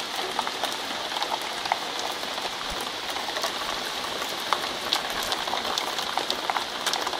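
Heavy rain falling steadily on asphalt and grass: a dense, even hiss with many small sharp drop splashes scattered through it.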